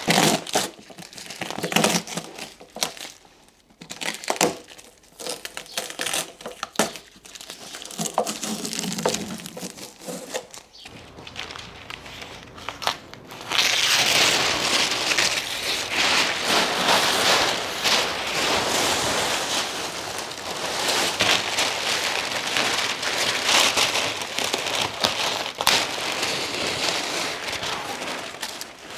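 Brown masking paper crinkling and crumpling, with tape tearing off, as it is pulled off a freshly painted car body. The first half is scattered rustles and crackles; from about halfway it becomes a dense, continuous rustle as large sheets are pulled away and bundled up.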